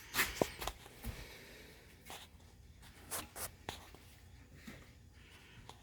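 Freshly baked cookies being lifted off a baking sheet: a utensil scrapes along the pan with short, irregular scrapes and light clicks, about a dozen strokes.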